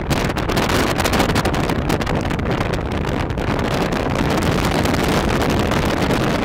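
Wind buffeting the camera's microphone out of a moving car's window, over a steady rumble of road and tyre noise.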